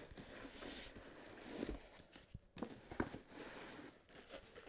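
Faint rustling of thin plastic wrapping as a wrapped part is pulled out of a foam packing insert, with a few soft knocks.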